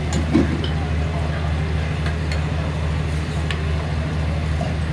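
A steady low mechanical hum, with a few sharp metal clicks from a spatula working roti on a flat griddle.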